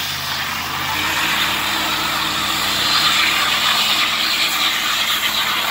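2007 Lincoln Town Car's V8 running through a slow burnout, the spinning rear tyres giving a steady hiss over the engine. The sound builds over the first couple of seconds, then holds.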